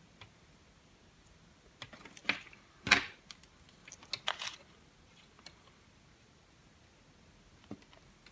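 A few small, sharp clicks and taps of metal tweezers and a soldering iron tip against an LED circuit board as a faulty surface-mount LED chip is desoldered and lifted off. The clicks come in a cluster about two to four and a half seconds in, the loudest near three seconds.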